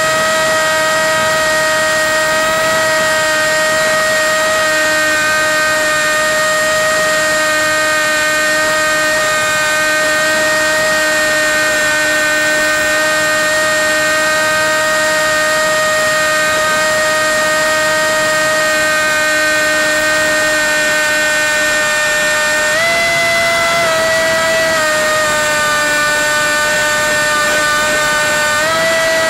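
RC model plane's electric motor and propeller whining steadily in flight. The pitch steps up briefly about 23 seconds in, drops back, then rises again near the end as the throttle changes.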